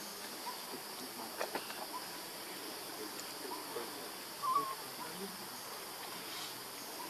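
A steady high drone of insects, with a few short high-pitched animal calls over it; the clearest is a brief warbling call about four and a half seconds in, with a couple of faint ticks around a second and a half in.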